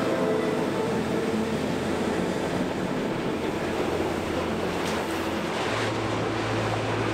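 Freight wagons loaded with logs rolling past on curving track: a steady rush and rumble of steel wheels on the rails, with a faint wheel squeal in the first second or two.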